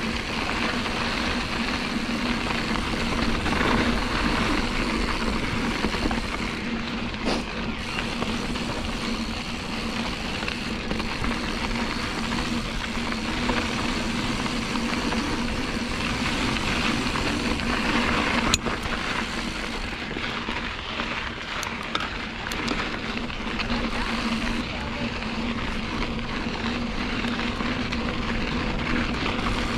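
Mountain bike rolling down a dirt trail, its rear hub (cassette) buzzing steadily as it freewheels, over tyre and wind noise. One sharp knock about two-thirds of the way through.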